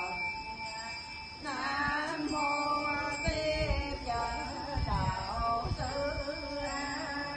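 Buddhist chanting sung to a melody, with a steady bell-like tone ringing through it. A few low thumps come around the middle.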